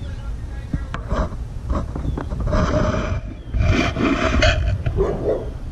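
A large dog barking: a few short barks, then two longer, loud outbursts about two and a half and three and a half seconds in. Wind rumbles on the microphone throughout.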